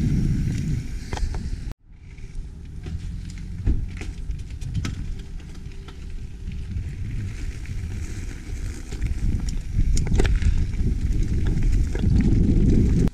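Wind rush on the camera's microphone and tyres rolling over dirt and gravel as a YT Capra mountain bike rides a trail, with scattered knocks and rattles from the bike going over rocks. The sound drops out suddenly just under two seconds in, comes back quieter, and grows louder again toward the end as the bike picks up speed.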